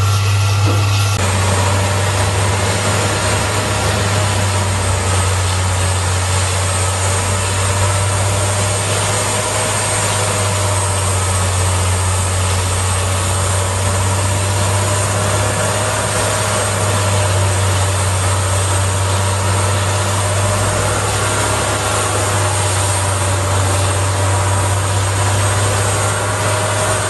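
Peterson 6700B horizontal grinder running under load: a steady heavy diesel drone with a constant high whine over continuous grinding noise.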